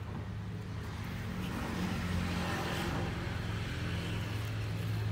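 An engine running steadily nearby, a low hum, with a wider rush of noise that swells about two to three seconds in, like a vehicle going past.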